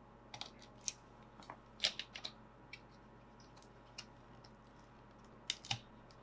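Irregular faint clicks and small plastic taps as the cooling fan of an ASUS TUF FX505DY laptop is unclipped, handled and lifted out of the chassis, with clusters of clicks about half a second, two seconds and five and a half seconds in.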